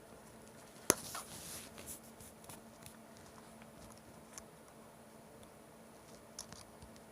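Plastic Molex connector halves being handled and pushed together: one sharp click about a second in, then light rustling and a few faint clicks.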